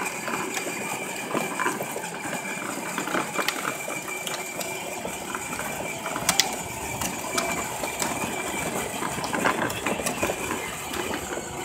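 Children's ride-on toy Jeep driving along with its pedal held down: a steady motor and gearbox whine, with scattered light clicks.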